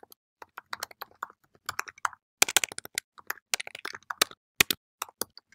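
Typing on a computer keyboard: irregular key clicks, with a quick run of keystrokes about halfway through.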